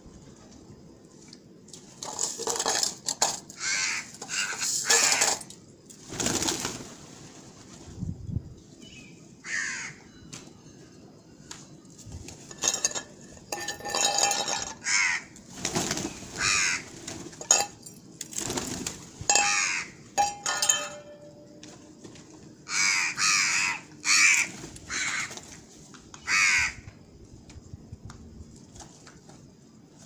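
Crows cawing over and over in harsh clusters of calls, with a flurry of pigeon wingbeats as a group takes off about midway.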